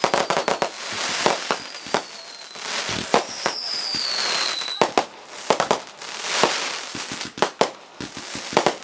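Consumer aerial fireworks going off in quick succession: many sharp bangs and crackling bursts. A falling whistle runs through the first half and cuts off suddenly near the middle.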